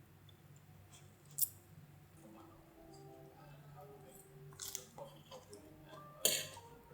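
Quiet household sounds over a low steady hum, with three sharp taps or clicks: about a second and a half in, near five seconds, and the loudest just after six seconds.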